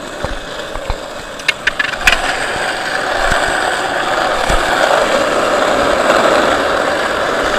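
Skateboard wheels rolling on asphalt: a steady rolling noise that grows louder about three seconds in, with a few sharp clicks around one and a half to two seconds in.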